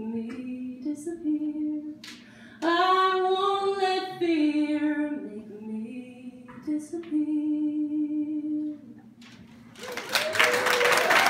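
A woman's voice singing unaccompanied, holding long notes over three phrases to end a song. Audience applause breaks out near the end.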